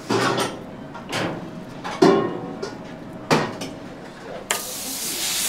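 Four sharp knocks as raw beef is handled and set down on a cutting board. About four and a half seconds in, a steak starts sizzling on a hot flat-top griddle with a steady hiss.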